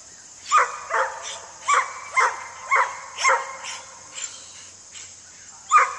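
A dog barking: a quick run of about six sharp barks, a pause, then another bark near the end.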